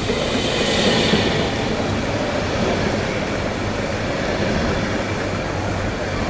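A train running along the rails: a loud, steady noise of the moving train that holds level throughout.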